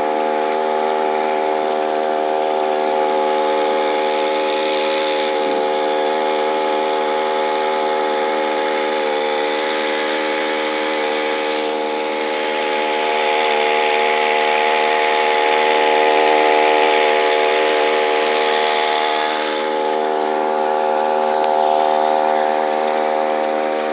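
Small boat's outboard motor running at a steady speed, one even drone with a hiss above it.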